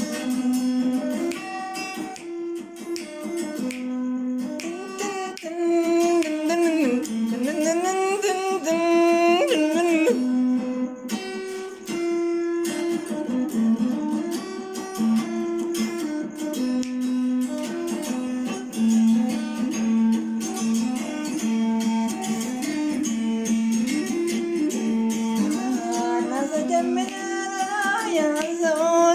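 Music: a plucked string instrument playing the melody of a song without words, with sliding, gliding melodic runs twice.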